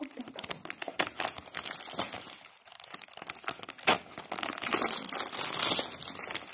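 Clear cellophane wrapping crinkling and crackling as it is cut with scissors and pulled back by hand, with one sharper crack about four seconds in.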